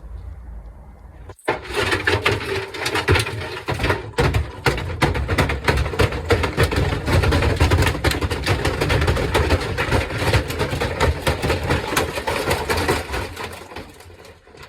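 Samsung washing machine running hard, its drum giving a loud, continuous rattling and banging over a low rumble. It starts suddenly about a second and a half in and eases off near the end.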